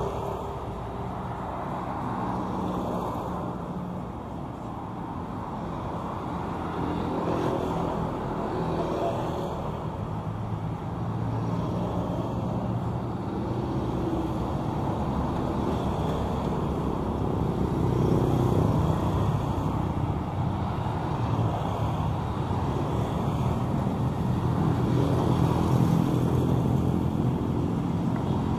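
Road traffic on a city street: cars and motorbikes passing in a steady engine and tyre hum that grows louder in the second half.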